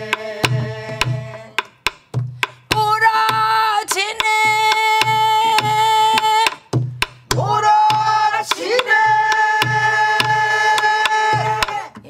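Group singing a Korean folk song in long held notes over Korean barrel drums (buk) beating the dongsalpuri rhythm, with low drumhead thumps and sharp stick clicks. The voices hold two long notes, one from about three seconds in and one from about eight seconds in to near the end.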